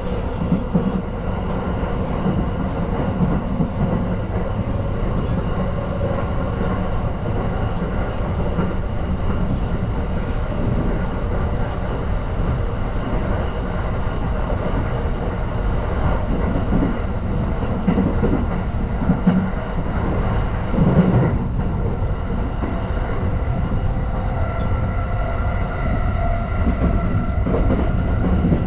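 JR Tokaido Line train heard from inside the passenger car while running at speed: a steady rumble of wheels on rail with a few faint steady tones above it. There are a few louder knocks about two-thirds of the way through.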